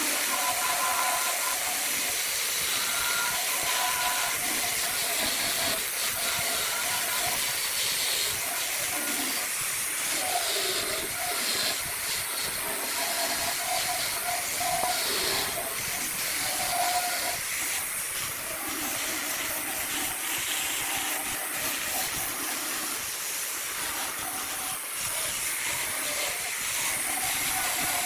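Wood lathe running with a steady hiss as a tool works the spinning wood, with faint wavering tones underneath.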